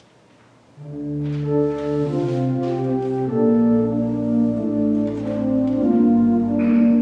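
Church organ playing, starting about a second in with full sustained chords that move in slow steps.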